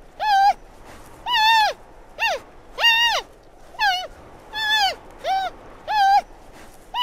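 Red panda calling: a series of about nine short squeaky calls, each rising and then falling in pitch, spaced a little under a second apart.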